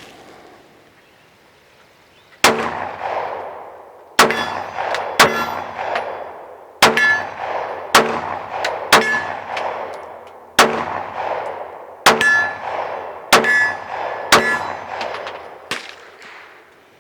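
9mm Glock 19-style pistol (Black Rain Ordnance Front Line) fired in slow single shots, about ten in all, roughly a second or so apart, each report followed by a ringing decay.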